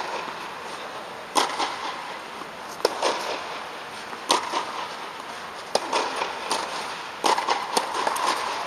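Tennis rally: racquets striking the ball in sharp, regular hits about every second and a half, five in all, with fainter knocks between them.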